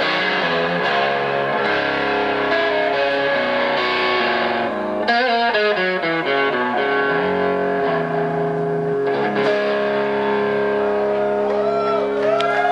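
Live rock band playing with a distorted electric guitar over bass and drums: sustained chords, a quick run of notes about five seconds in, then a long held chord ringing out as the song closes.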